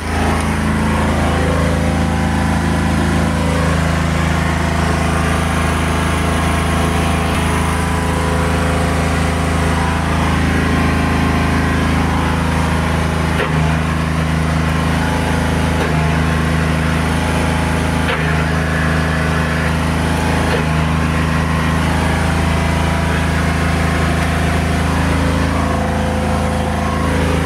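Rebar bending machine running steadily with a low, even drone, with a few sharp clicks around the middle.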